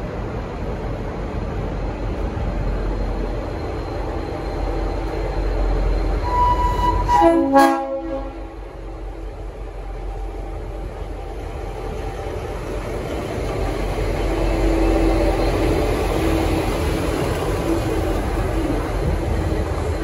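V/Line N class diesel-electric locomotive N472 running past at low speed with its diesel engine rumbling. About seven seconds in it gives one short blast of its Leslie RS5T five-chime horn, a chord of several tones that stops abruptly.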